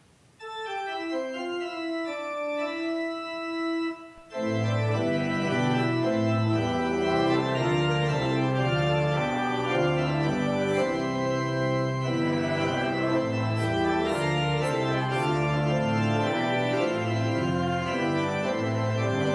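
Church organ playing: a thin line of held notes at first, then, after a brief break about four seconds in, full sustained chords over a bass line.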